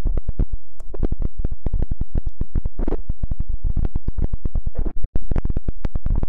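Fast, evenly spaced strokes of fingers on an ASMR microphone, about eight a second, with a brief dropout about five seconds in.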